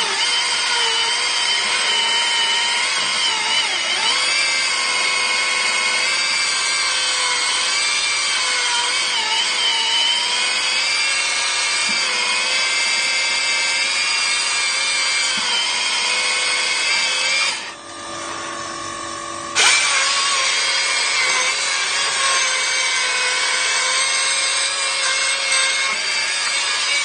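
ICS 890 hydraulic diamond chain saw cutting into a concrete wall with water feed, a steady high grinding whine under load. About two-thirds of the way through, it drops for about two seconds to a quieter steady hum, then comes back suddenly at full cutting level.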